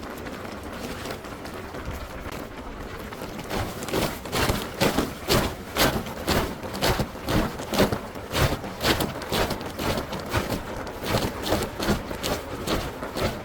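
Steady background noise, then from a few seconds in a run of even, sharp impacts, about two a second.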